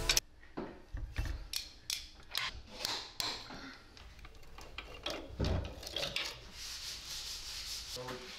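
Light handling noises: scattered clicks, scrapes and rubbing as a head gasket is offered up to a John Deere B's cylinder block and slid over the head studs, fading to a faint hiss near the end.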